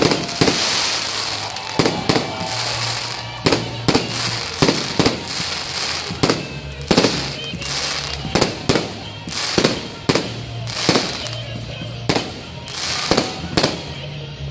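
Fireworks display: a rapid, uneven series of sharp bangs and pops, about one or two a second, each with a short echo, over a constant crackling hiss.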